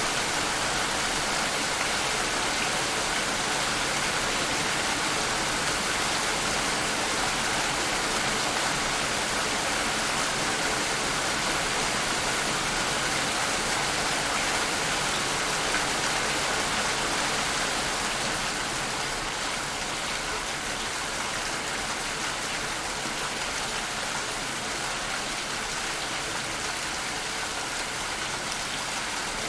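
Steady rain falling, a continuous even hiss of drops, easing slightly a little past halfway.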